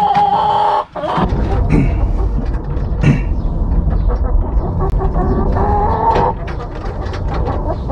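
Chickens clucking and calling in a coop, with drawn-out calls at the start and again near the end. A low rumble sits underneath from about a second in, with scattered light knocks.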